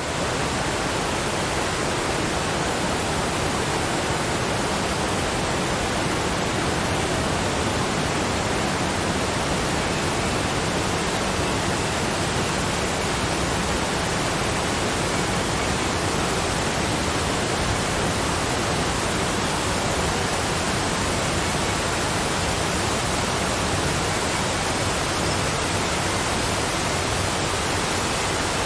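Waterfall: water falling in a steady, even rush.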